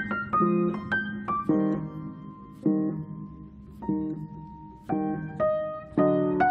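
Solo piano music: slow, gentle chords and melody notes, each struck and left to ring out.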